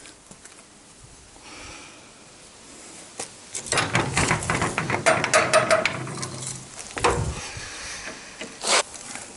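Metal tools and parts being handled on a steel-mesh workbench: a cluster of rattling knocks and clatter a few seconds in, then a single sharp clank near the end.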